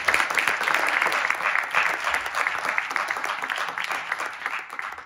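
Audience applauding, many hands clapping densely, thinning out near the end.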